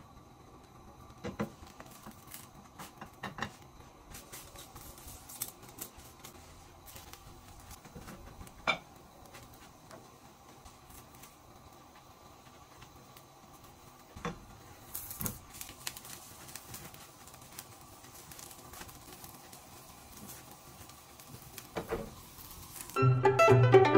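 Scattered light taps and scrapes of a silicone spatula against a nonstick frying pan as filled tortillas are folded and turned, over a faint steady hum. Music starts loudly about a second before the end.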